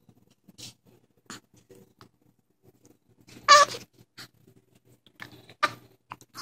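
A baby hiccuping: several short, high-pitched hics at uneven gaps, the loudest about halfway through.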